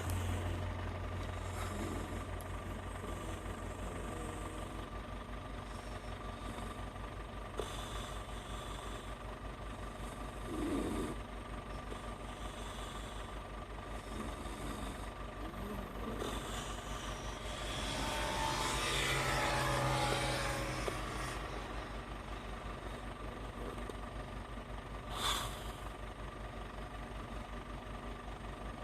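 Snoring: soft snores every few seconds, one longer and louder stretch about two-thirds of the way in, over a steady low hum.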